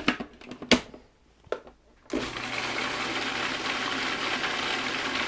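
A few sharp knocks, then about two seconds in a Cuisinart food processor motor starts and runs steadily with a low hum, giving the walnut pesto a final short blend.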